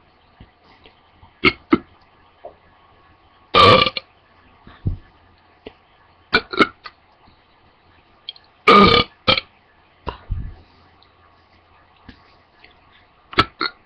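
A young woman burping repeatedly: a string of short burps with pauses between, two of them longer and louder, about four and nine seconds in.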